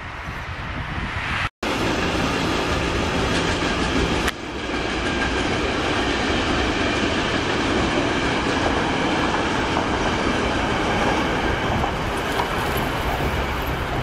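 Freight train of enclosed car-carrier wagons rolling past, a steady running noise of wagons on the track. It breaks off briefly about a second and a half in, where the recording cuts.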